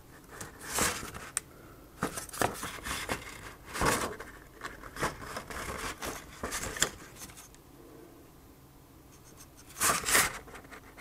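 Thin plastic keyboard membrane of an Amiga A600 and its printed ribbon tail crinkling and rustling as it is handled and turned over: irregular crackles and scrapes, with a quieter stretch of about two seconds before a last cluster near the end.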